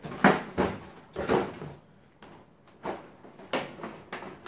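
Clear plastic packaging tray and wrapping being handled and pulled at: a series of short rustling, scraping bursts, loudest near the start and about a second in, with a quieter stretch in the middle.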